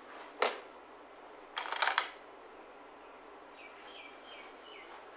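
A sharp click, then a brief clatter of clicks about a second later; near the end a small bird chirps four times in quick succession, each note falling slightly in pitch.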